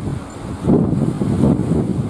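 Wind buffeting the microphone in gusts, a loud low rumble that swells less than a second in.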